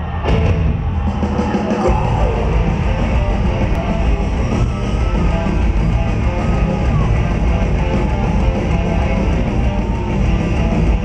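Heavy metal band playing live in an arena, heard from the crowd: electric guitars, with heavy bass and drums filling in about two seconds in.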